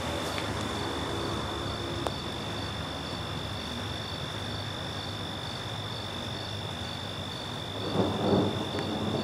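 Night insects trilling steadily, with a fainter chirp pulsing about twice a second, over a soft hiss of rain. About eight seconds in, a rumble of thunder begins to build.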